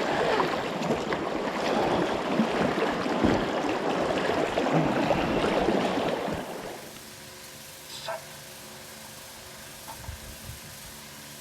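Rushing river water through shallow rapids, a loud churning wash. It cuts off abruptly about seven seconds in, leaving a quiet steady hum with a couple of faint knocks.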